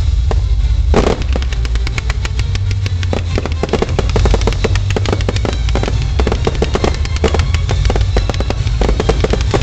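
Fireworks display: a dense barrage of launch reports and shell bursts cracking and banging in rapid succession over a steady low rumble, with a heavier bang about a second in.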